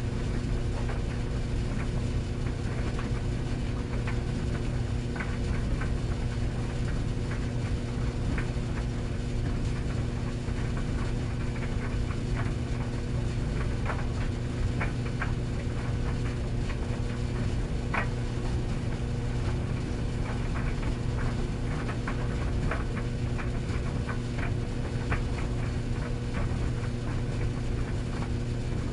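Tumble dryer running: a steady motor and drum hum, with irregular light clicks and taps scattered throughout as the load tumbles against the drum.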